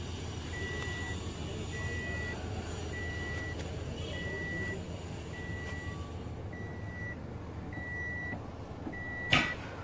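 Evenly repeating electronic beeps, a single high tone about every 1.2 seconds, typical of a vehicle's reversing beeper, over a steady low rumble. A short, louder noise cuts in near the end.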